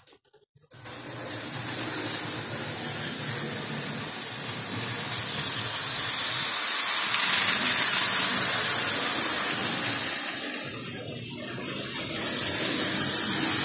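Lionel O-27 model steam locomotive running on three-rail tinplate track: a steady rumble of its electric motor and metal wheels on the steel rails. It starts about half a second in, grows louder toward the middle, eases off a little, then rises again near the end.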